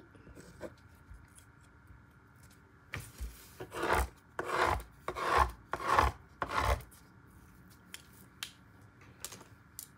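About six rasping, scraping rubs in quick succession, beginning about three seconds in and ending near seven seconds, then a few faint clicks.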